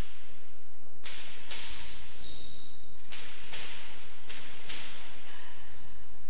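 Hard ball of a rackets rally cracking off rackets and the court walls, a quick series of sharp strikes about two a second starting about a second in, each ringing briefly in the enclosed court. High squeaks of shoes on the floor come in between.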